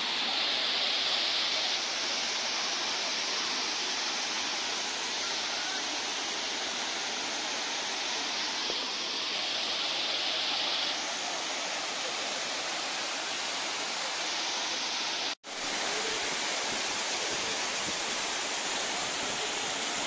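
Waterfall pouring down stepped rock ledges into a pool: a steady rushing hiss of falling water. It cuts out for a split second about three-quarters of the way through.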